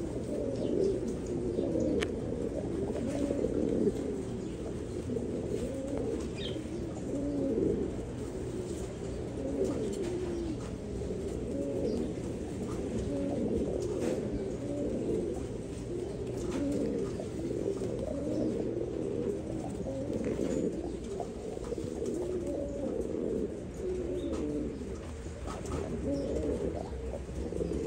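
Pouter pigeons of the Buchón laudino sevillano type cooing continuously, several coos overlapping one another.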